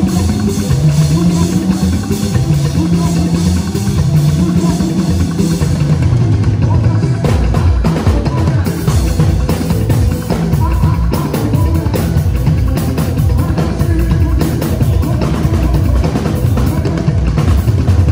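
Live gospel band music: a drum kit drives a fast groove over a moving bass line, and the drumming gets busier about six seconds in.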